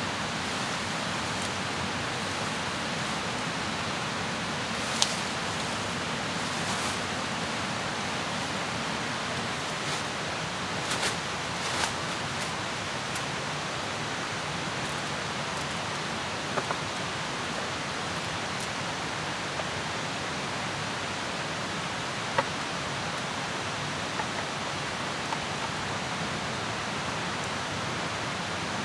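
Steady, even rushing hiss of forest ambience, like flowing water, with a few sharp snaps and clicks as sticks and fern fronds are handled by a small campfire; the loudest snaps come about five seconds in and a little past twenty seconds in.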